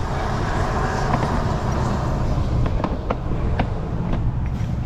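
Wind rumbling on the microphone, with a vehicle passing on the road during the first couple of seconds. In the second half come several light metallic clinks, one at a time, as the adapter discs of a bearing race installer kit are handled to find the one that fits the race.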